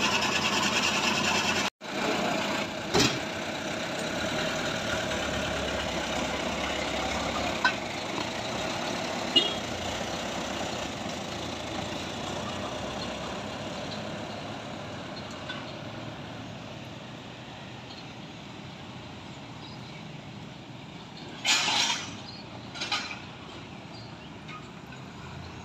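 Small tow truck's engine running as the truck drives off, fading steadily as it pulls away. A couple of short loud bursts come near the end.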